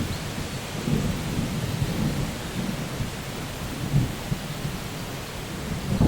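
Steady rain with low, rolling thunder rumbling underneath, swelling at the very end.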